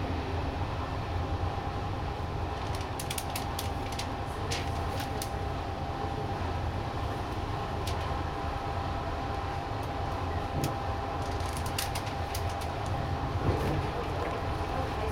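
Double-deck passenger coach hauled by a DB class 218 diesel locomotive, heard from on board while running between stations: a steady low rumble of wheels on track. Two bursts of sharp clicks come through, one a few seconds in and another near the end.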